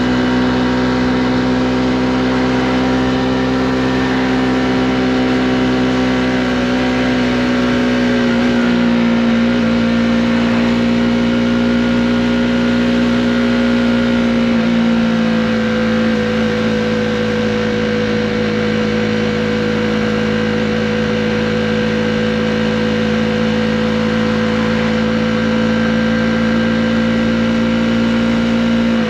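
Honda CB125R's single-cylinder four-stroke engine pulling along at a steady cruising pace, its note holding nearly level with small drops in pitch about nine and fifteen seconds in.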